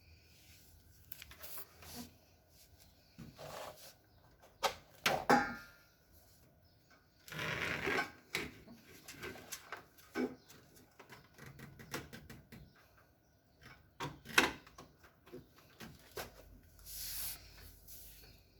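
Handling noises: scattered clicks, knocks and bursts of rustling as a power cable is moved to another switch on a power strip or wall outlet and the switches are pressed.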